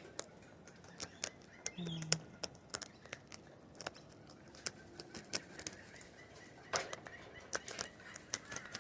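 Quiet, irregular soft clicks and taps from the cockatoos' beaks and feet, a few a second at times, with a short low hum about two seconds in.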